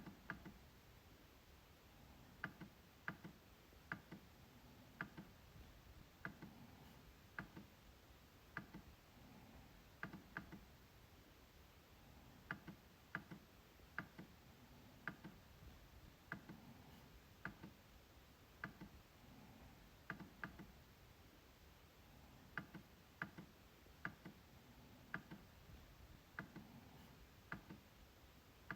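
MacBook trackpad being clicked: short, sharp, faint clicks at an uneven pace of about one a second, often two in quick succession.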